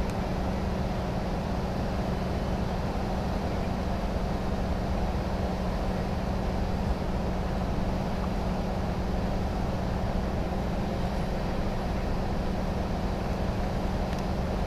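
An engine running steadily at a constant speed, an even drone that does not change.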